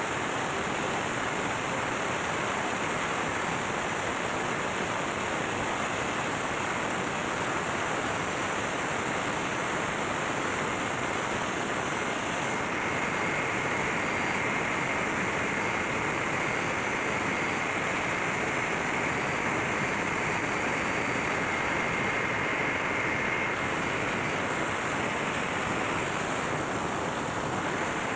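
MAN B&W marine auxiliary diesel generator engine running steadily: a dense, even engine-room din with no separate strokes standing out. About halfway through, a steady high whine joins for roughly ten seconds, then stops.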